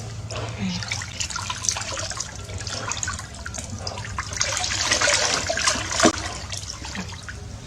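Bathwater splashing and dripping in a bathtub as a small monkey moves about in it: irregular splashes, busiest about halfway through, with one sharper splash about six seconds in.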